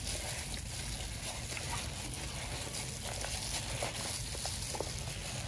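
Soft wet squishing and plastic-glove rustling as gloved hands rub a marinade of chilies and ginger into raw fish, with scattered small ticks over a steady hiss and low hum.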